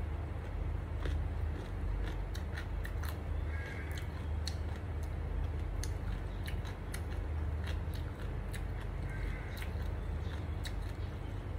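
Close-miked chewing of a mouthful of rice and omelette, with frequent short wet mouth clicks and smacks, over a steady low hum.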